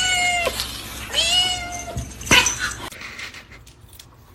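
Cat meowing: a drawn-out meow ending about half a second in, then a second long meow that drops in pitch at its end. A short sharp knock follows.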